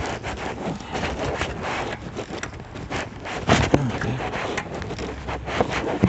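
Irregular rubbing and scraping handling noise from a phone being moved about close to the microphone, with wind on the microphone.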